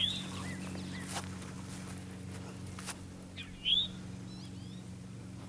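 Wild songbirds chirping in short, scattered calls, the loudest about three and a half seconds in, over a steady low hum, with two brief clicks.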